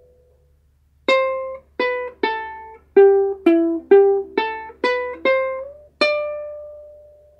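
Ukulele playing a song's intro melody slowly, one plucked note at a time: about ten notes that step down in pitch through the middle and climb back up, the last one left to ring out.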